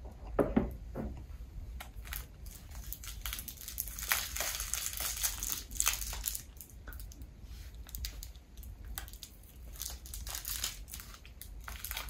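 Rustling and crinkling with irregular small clicks and crunches, as of something being handled, over a low steady hum.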